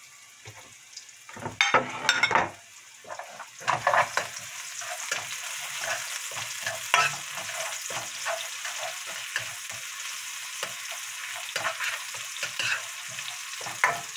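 Sliced green onions sizzling in hot oil in a nonstick wok, stirred with a plastic slotted spoon that scrapes and taps against the pan. There are a few loud knocks and scrapes near two seconds in, then a steady sizzle. The scallions are being fried to flavour the oil, the first stage of kimchi fried rice.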